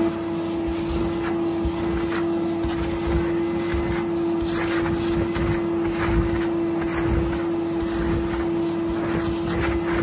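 Henry canister vacuum cleaner running steadily with a constant motor whine, its floor tool pushed back and forth over a pile rug, which gives short irregular swishes on top of the whine.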